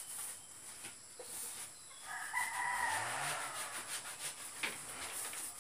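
A rooster crows once, about two seconds in, a single held call lasting a little over a second.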